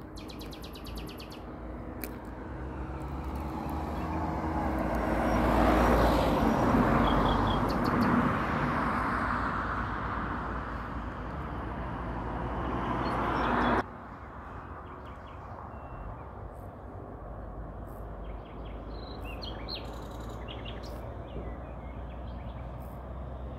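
A passing vehicle's noise swells for several seconds and fades, then rises again and cuts off suddenly about fourteen seconds in. After that, birds chirp faintly over steady outdoor background noise.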